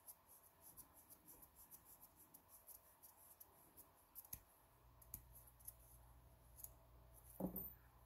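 Faint run of small, quick clicks, about five a second, as thin steel wires are worked through a slotted wooden block, thinning to a few sharper clicks, then one louder knock near the end.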